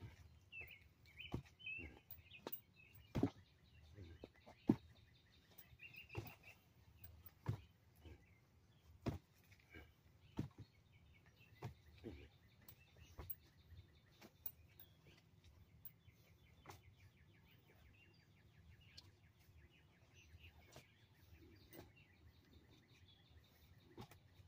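Arms and hands striking a thin tree trunk: a series of dull knocks at irregular intervals, about one a second at first and sparser in the second half, the loudest a few seconds in. Birds chirp faintly near the start.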